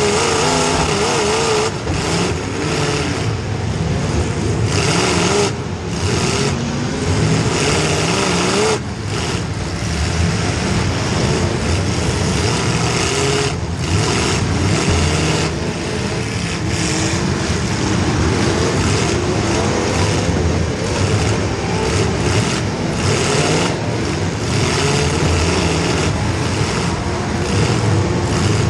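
Demolition derby car's small-block Chevy V8 running hard, its revs rising and falling over and over as it is driven through the heat.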